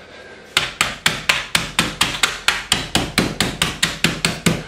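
Wooden rolling pin bashing plain sweet biscuits inside a plastic snap-lock bag on a wooden chopping board, crushing them into crumbs and lumps. The strikes start about half a second in and come steadily at about four a second.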